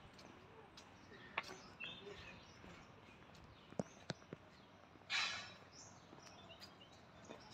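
Quiet outdoor background with faint bird chirps, a few sharp clicks, and a brief hiss about five seconds in.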